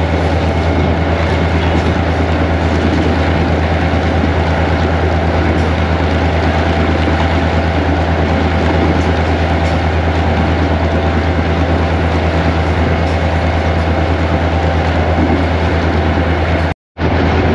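Diesel-electric locomotive (a Pakistan Railways GMU-15) running, heard from inside its cab: a loud, steady engine drone with a deep hum and the noise of the moving train. The sound cuts out completely for a split second near the end.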